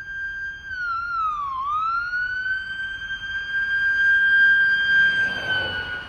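Ambulance siren holding one high, steady tone. About a second in it slides down in pitch and climbs back up, then holds steady again.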